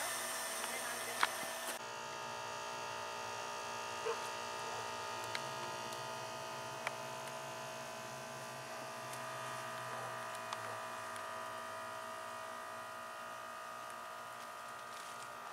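A steady electrical hum of several tones, with a few faint clicks.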